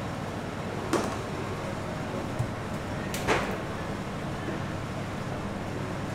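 Steady kitchen background hum and hiss, with a sharp knock about a second in, a small click, and a short scrape a little past three seconds, like utensils or a pan handled on a work surface.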